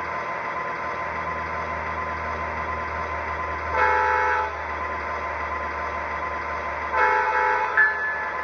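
Sound system of an MTH ES44AC model diesel locomotive playing a steady idling diesel engine sound, with two short horn blasts about four and seven seconds in. A repeating ringing tone starts near the end.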